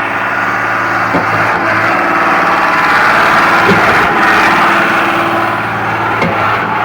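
Concrete pump's engine running steadily, with a short knock about every two and a half seconds.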